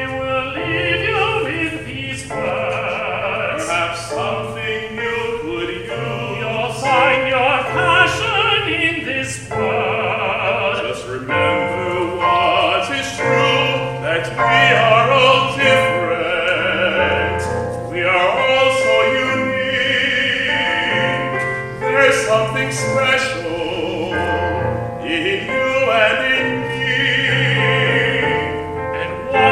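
Opera singing with instrumental accompaniment, including piano and light percussion.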